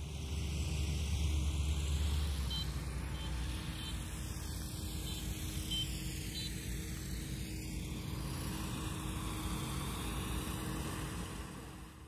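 An engine running steadily, a low hum under outdoor noise, with a few short high chirps a few seconds in.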